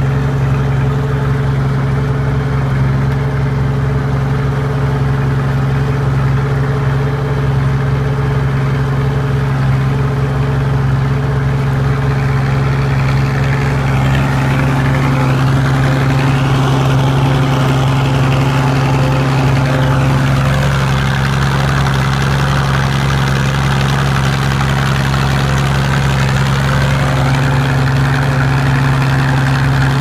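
Fordson Super Major tractor's six-cylinder diesel engine running steadily under load while pulling a three-furrow plough through the soil. A higher rushing noise rises and falls about halfway through.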